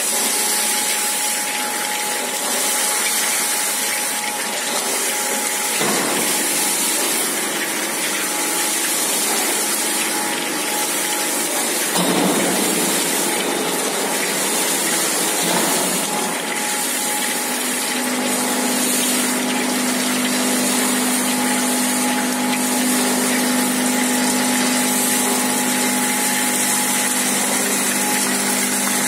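Seed magnetic separator running: a steady mechanical whir and hiss, with a low steady hum joining about two-thirds of the way through.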